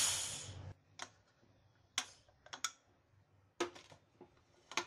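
Light metal clicks and taps as the whistle weight is lifted off a Prestige Deluxe aluminium pressure cooker's lid and the lid is handled, about eight scattered clicks in all. A brief hiss fades out at the very start.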